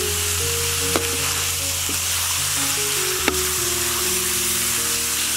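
Sliced pig tongue sizzling as it fries in hot oil in a metal wok while a metal ladle stirs it. The ladle clicks sharply against the wok twice, about a second in and just past three seconds. Background music plays underneath.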